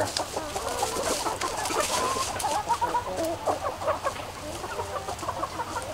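A flock of asil chickens clucking, many short, scattered calls overlapping.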